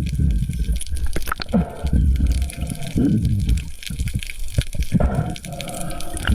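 Water splashing and gurgling, with a few short falling cries or calls mixed in.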